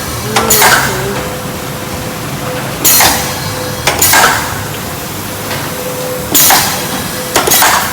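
Cooking kettle's transfer pump running on its clean cycle, pushing bleach water through the lines. A steady whine and a low pulsing hum are broken by loud, noisy surges in pairs about a second apart, repeating about every three and a half seconds.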